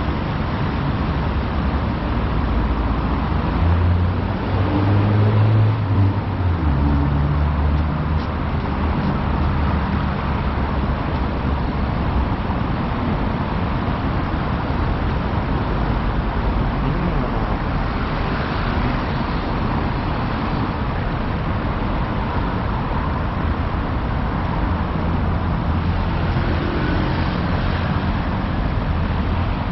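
Steady city street traffic noise, with a vehicle engine droning loudest from about four to eight seconds in.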